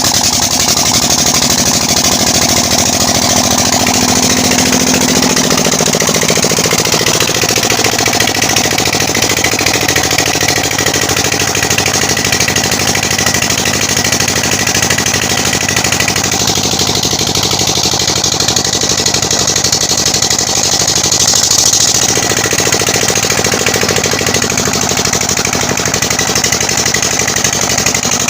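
20 hp Peter diesel engine running steadily after its injector nozzle repair, with a fast, even knock from each firing stroke. Its tone shifts slightly about two-thirds of the way through.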